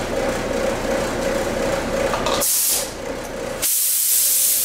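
Compressed-air paint spray gun triggered in two hissing bursts: a short one about two and a half seconds in, then a longer one near the end. These are test sprays while the gun is being set to a narrow fan and a choked-down fluid flow for clear coat. A steady hum runs underneath before the bursts.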